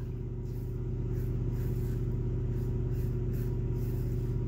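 Muhle R41 double-edge safety razor scraping through lathered stubble on the cheek in short strokes, faint, a couple of strokes a second. A steady low hum runs under it and is the loudest sound.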